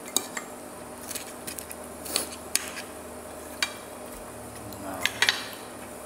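Metal fork and knife clinking and scraping against a ceramic plate while eating: scattered sharp taps, with a cluster of the loudest about five seconds in, over a steady faint hum.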